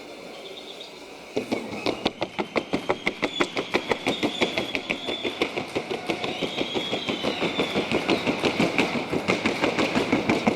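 Hooves of a Colombian paso horse in the fast trocha gait drumming on a wooden sounding board. The rapid, even hoofbeats, about seven or eight a second, start suddenly about a second in. A faint high whistling tone wavers above them.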